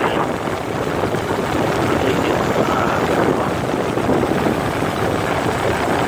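Nissan 3.3-litre V6 idling, heard close to the accessory belt and pulleys. The idle is rough from a random misfire in cylinder 2.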